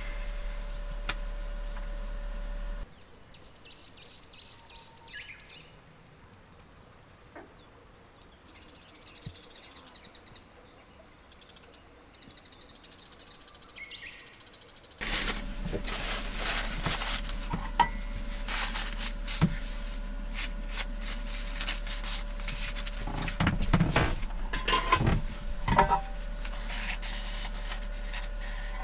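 A steady low hum for the first few seconds, then a quiet outdoor evening with faint animal chirping. About halfway through the hum returns, with repeated clinks and clatters of a stainless-steel pot and spoon being handled, busiest a few seconds before the end.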